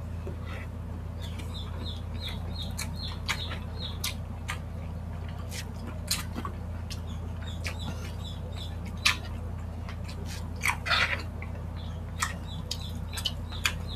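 Close-miked eating of saucy spicy chicken feet: wet lip smacks, sucking and sharp chewing clicks, scattered irregularly with a louder cluster about eleven seconds in, over a steady low hum. Runs of short, high, quickly repeated chirps come and go in the background.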